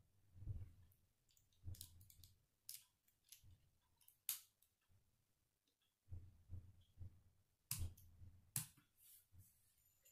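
Plastic K'nex rods and connectors clicking faintly as they are handled and snapped together, with a few sharp clicks and soft low knocks of the pieces against a wooden tabletop.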